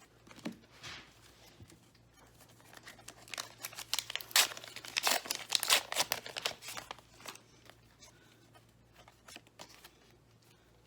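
Pokémon card pack wrapper being torn open and crinkled by hand, in a run of sharp crackles loudest in the middle.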